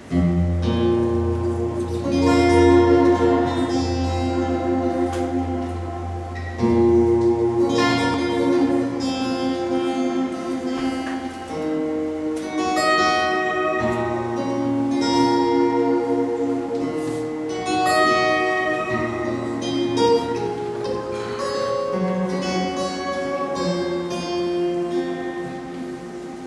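Live band music without vocals, led by plucked guitar notes over held low bass notes that change every few seconds.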